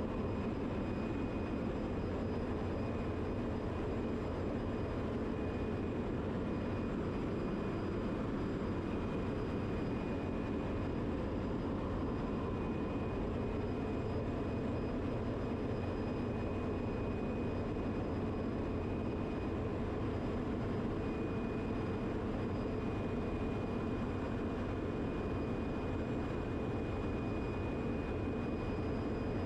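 Steady drone of running machinery in a ship's engine room, with a thin, steady high whine on top.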